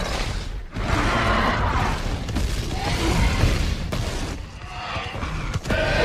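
Carnotaurus dinosaur creature sound effect: loud roars and growls with a deep rumble beneath, in several calls broken by short gaps about a second in and again near the end.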